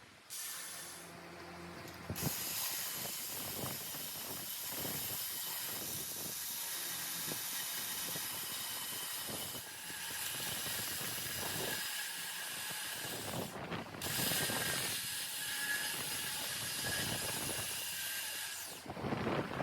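Metal tools and parts clicking and knocking irregularly over a steady hiss, with a few abrupt cuts.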